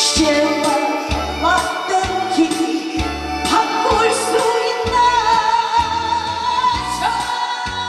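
A woman singing a Korean song into a microphone over a karaoke backing track with a steady bass beat, holding a long note with vibrato about five seconds in.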